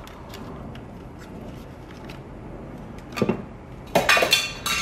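Small steering-wheel parts being handled with faint clicks, then a knock about three seconds in and a brief clatter near the end as a small part is dropped.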